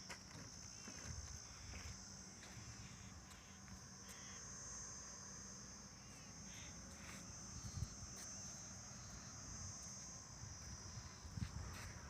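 Insects chirring steadily in one even, high-pitched band, with a few faint knocks.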